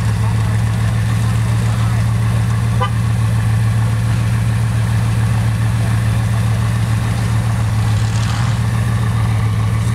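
Bugatti Veyron Grand Sport Vitesse's quad-turbocharged 8.0-litre W16 engine idling, a steady, even low hum.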